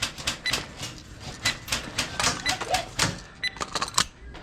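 Airsoft guns firing, an irregular run of sharp clicks and snaps, some with a faint metallic ring.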